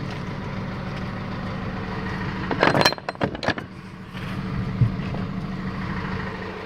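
Hydraulic lift gate on a Hino 185 box truck being raised: a steady mechanical hum from the lift running, with a cluster of loud metal clanks about two and a half to three and a half seconds in. The hum drops off near the end.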